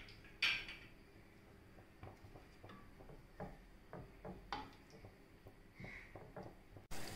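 Light, scattered taps and scrapes of a wooden spatula against a stainless steel pressure cooker as water with green peas is stirred. Near the end, a soft steady hiss of the water heating toward the boil begins.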